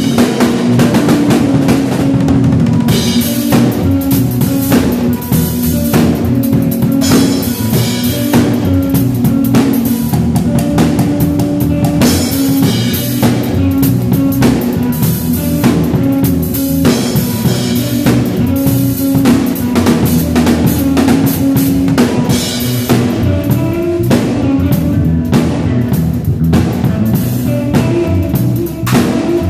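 A live band playing music at a sound check: a drum kit with kick and snare hits keeping a steady beat, under sustained bass and guitar notes.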